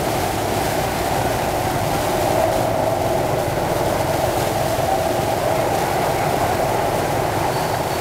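Motorcycle-drawn tuk-tuk riding along, heard from its passenger carriage: the motorbike engine running steadily under road and wind noise.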